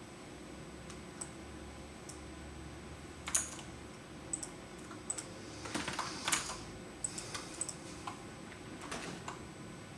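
Computer keyboard keys being pressed: scattered single keystrokes, with a short run of them in the middle, over a faint steady hum.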